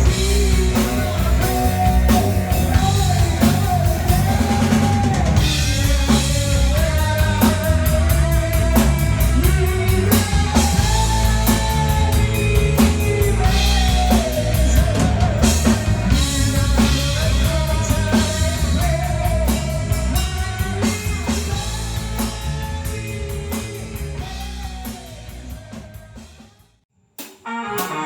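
Rock band playing in rehearsal: drum kit, bass and a wavering lead melody line. The music fades down over the last few seconds, cuts out briefly and starts again just at the end.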